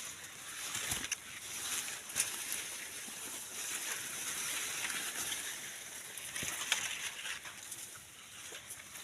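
Maize plants rustling and brushing as the stalks are moved, with scattered sharp snaps and clicks.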